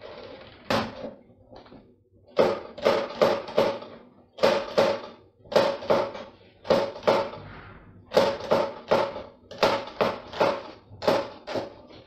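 Kitchen knife chopping celery on a plastic cutting board: sharp knocks in quick runs of three or four, with short pauses between the runs.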